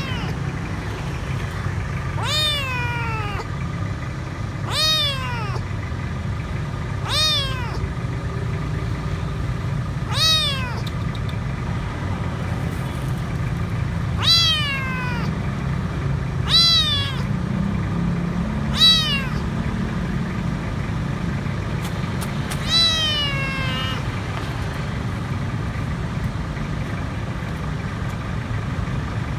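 Stray kitten meowing about nine times, every two to four seconds, each call rising then falling in pitch, over a steady low hum. It is crying for food.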